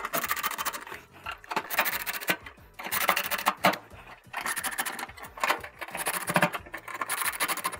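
Makita 18V cordless drill on a low torque setting driving screws down into gas range burner bases, running in a series of short bursts with brief pauses between.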